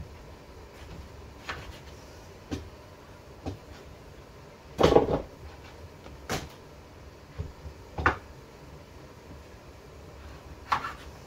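Knife cutting butternut squash on a wooden cutting board: separate knocks of the blade meeting the board, about one every second or so, the loudest about five seconds in.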